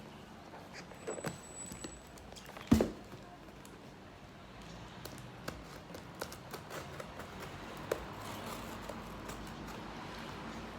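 Objects and packaging being handled on a surface: scattered clicks and light knocks, with one sharp louder knock about three seconds in.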